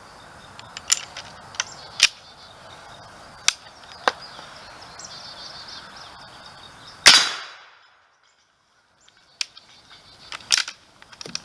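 A single shot from a Model 1866 trapdoor rifle firing a black-powder .50-70 Government cartridge, about seven seconds in; its report fades over most of a second. Before the shot and again near the end come several sharp metallic clicks of the rifle's hammer and breech being worked.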